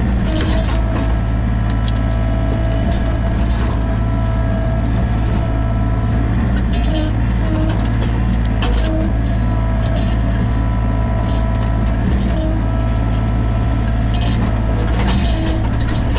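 Sany mini excavator's diesel engine running steadily under load, with a whine that dips briefly in pitch several times as the hydraulics are worked, and a few sharp clacks.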